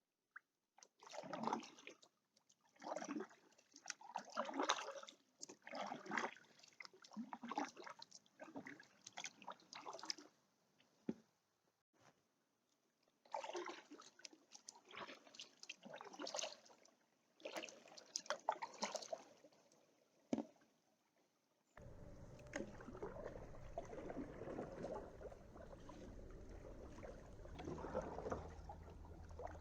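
Kayak paddle strokes splashing and dripping in calm canal water, one about every second and a half, with a short pause midway. About three-quarters of the way through, the sound changes suddenly to a steady low rumble under the water sounds.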